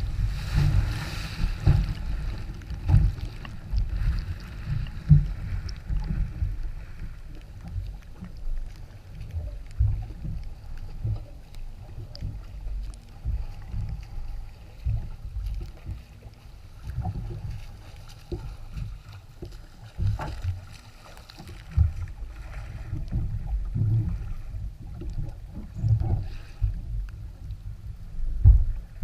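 Jet ski running over waves: a muffled low rumble with irregular thumps. It is loudest at the start, eases off in the middle and builds again near the end.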